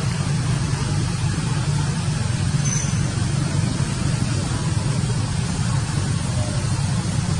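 A steady low rumble under an even hiss, with no break or change.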